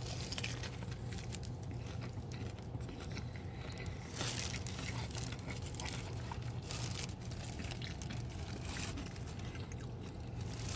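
A person biting into and chewing a fried chicken slider, with scattered soft crunches of the breading and mouth noises, a little louder about four seconds in. A steady low hum sits underneath.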